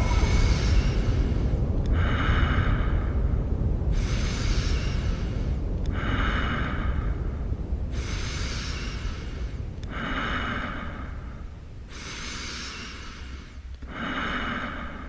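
Electronic dance-piece soundtrack: a deep brown-noise rumble under a regular pattern that switches every two seconds between a rushing hiss and a ringing band of steady tones. It fades slowly.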